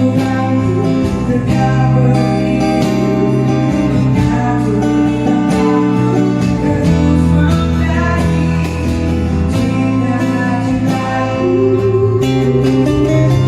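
Music: a band playing, with guitar over held bass notes and regular percussion hits, the chords changing every few seconds.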